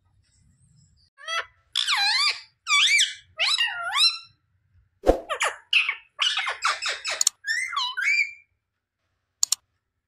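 Rose-ringed parakeet giving a run of short squawking calls that swoop up and down in pitch, with brief pauses between them. There is a sharp click about five seconds in, and the bird is quiet for the last second and a half apart from two quick clicks.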